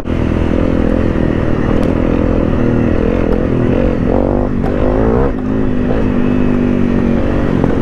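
Honda CRF250 Rally's single-cylinder engine running under load off-road, mostly steady, with the throttle coming off and back on about four to five seconds in so the pitch dips and rises again.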